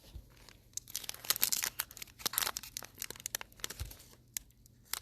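Plastic trading-card pack wrapper being torn open and crinkled: a dense run of sharp crackles for a few seconds that dies away near the end.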